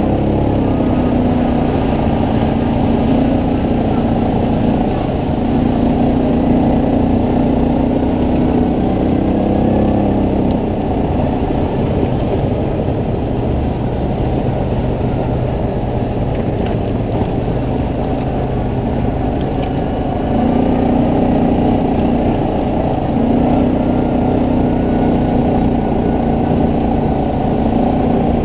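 ATV engine running as it is ridden; its note climbs and holds higher in stretches during the first ten seconds and again near the end, easing off in between.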